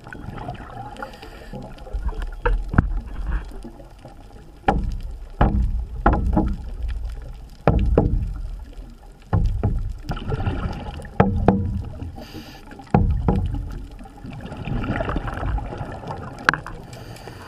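Scuba regulator breathing underwater, heard through the camera housing: a rush of exhaled bubbles every few seconds, with sharp clicks between the rushes.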